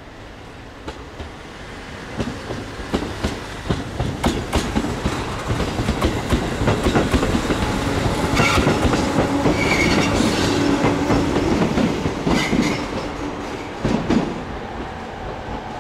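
Electric commuter train passing, its wheels clicking rhythmically over rail joints. The clicking grows louder over the first several seconds and is loudest around the middle, with a steady motor hum and a few brief high wheel squeals. It then eases off near the end.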